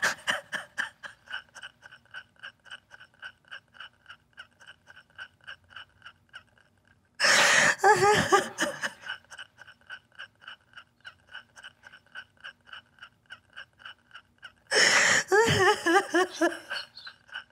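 A woman sobbing: two bursts of gasping breath and short, wavering cries, about seven seconds in and again near the end. Between them a faint tone pulses about four times a second.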